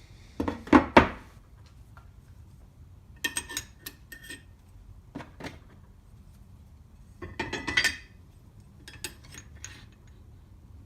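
Metal power hacksaw parts clinking and knocking against each other as they are handled and fitted during reassembly, in five short bursts, some with a ringing clink.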